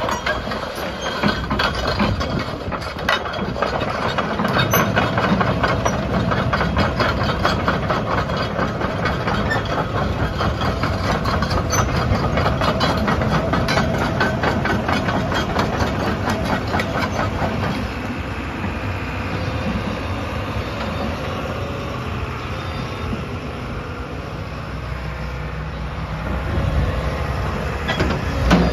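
JCB JZ140 tracked excavator running, with a fast, even metallic clatter over its engine for about the first eighteen seconds, after which it settles to a steadier, slightly quieter running sound.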